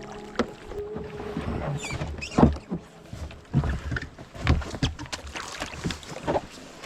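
Kayak paddle strokes dipping and splashing in shallow water, about one stroke a second, with water sloshing against the hull.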